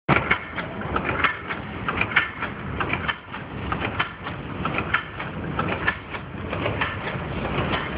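Automatic dog-chain making machine running: a fast, uneven clatter of clicks and knocks over a steady mechanical running noise.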